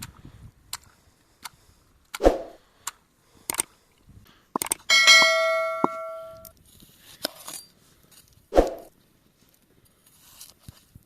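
Cooking utensils handled: scattered clicks and knocks, with two heavier thuds. About five seconds in, a metal vessel is struck and rings once, dying away over a second or so.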